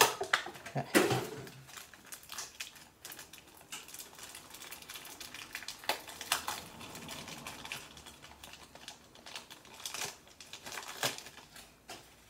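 Bakugan toy box packaging being handled and opened: scattered crinkling and a few sharp clicks.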